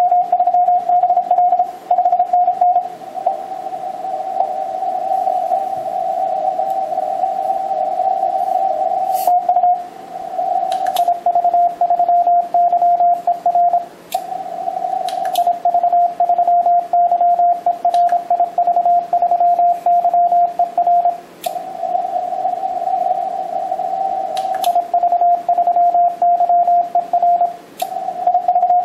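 Morse code (CW) keyed on the 20-metre band, coming from an Icom HF transceiver's speaker. It is a dense run of beeps near one mid pitch over light hiss, with short breaks a few times.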